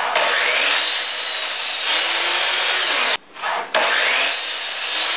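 Mastercraft sliding mitre saw running and cutting through a spruce 1x4 board. The sound cuts off suddenly about three seconds in, then the saw is heard cutting again.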